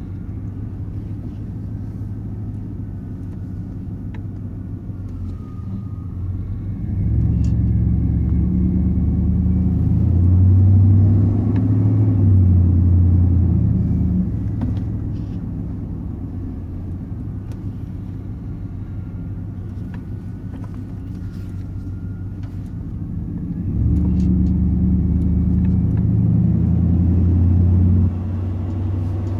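Exhaust note of a 1990 Chevy K1500's 5.7-litre 350 V8, heard from inside the cab while driving, through a new exhaust with a dual in/out muffler and no catalytic converter. It is a low steady rumble that grows louder twice, about seven seconds in and again later, and drops back suddenly near the end.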